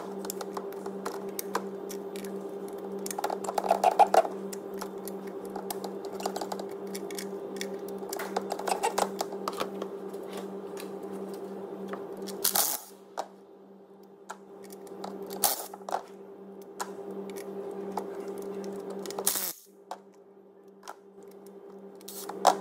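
Hand ratchet and spark plug socket clicking in short runs as spark plugs are undone. This is followed by a few brief bursts from a cordless impact driver spinning the plugs out, over a steady low hum.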